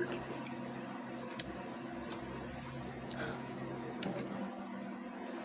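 Drinking from a plastic sports-drink bottle and handling it: a handful of faint, sharp clicks at irregular intervals, over a steady low hum.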